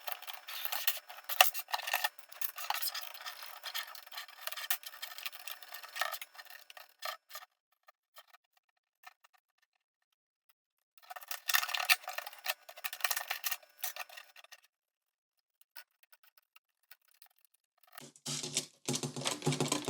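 LEGO plastic plates being worked loose from a baseplate: the plates rub, scrape and click against each other in two spells of fiddly prying, with a pause of a few seconds between them. Near the end a low, voice-like sound joins in.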